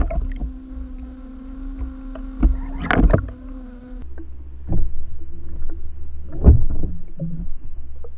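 Underwater sound picked up by a submerged camera: a steady low hum and rumble with irregular knocks and thuds. After about four seconds the hum stops and the sound turns duller.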